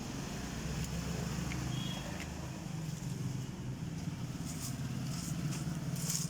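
A steady low mechanical hum with a fast flutter, with a few light clicks and rustles in the second half.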